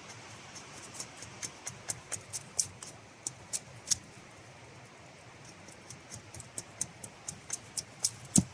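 Hultafors Stålberg carpenter's axe making light, quick cuts in wood while carving small pegs: an irregular run of crisp clicks, about two or three a second, with a heavier knock near the end.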